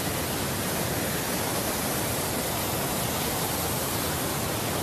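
A huge waterfall's falling water, a steady, even rush with no breaks.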